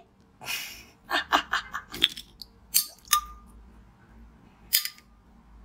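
A metal spoon tapping a glass vase of chilled blue liquid, part of an attempt to make it freeze on touch. A quick run of light clicks comes about a second in, then three sharper taps, each leaving a short glassy ring.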